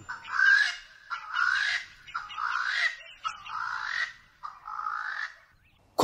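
A wild animal calling: five harsh, rasping calls in a row, each just under a second long and rising slightly in pitch.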